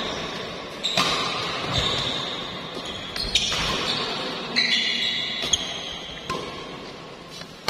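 Badminton rally: rackets striking the shuttlecock in several sharp cracks a second or so apart, between them high-pitched squeaks of court shoes on the hall floor.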